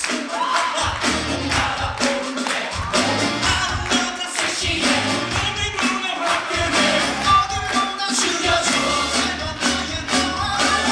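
Upbeat curtain-call music from a live stage musical: band with a steady driving beat and voices singing over it.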